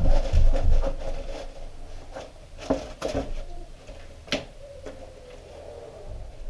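Hands working with tools and the seat parts while spreading body filler: low thuds and rustling at first, then a few sharp clicks and knocks.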